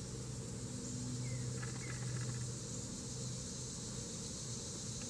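Steady high-pitched drone of insects in the creekside trees, over a low steady hum, with a few faint chirps about two seconds in.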